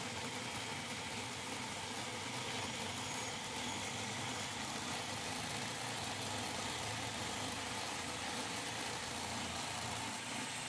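Electric food processor motor running steadily, its blade spinning through chunks of butter with dried herbs and spices to make herb butter.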